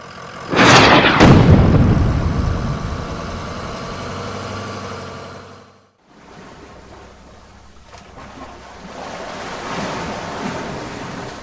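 Cartoon sound effects: a sudden loud blast about half a second in that dies away as a rumble over about five seconds, then the wash of waves and churning water that swells and eases near the end.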